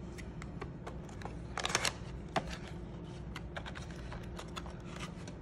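Small cardboard box being handled and its end flap opened: scattered light taps, scrapes and rustles of the card, with a short cluster of scraping about a second and a half in.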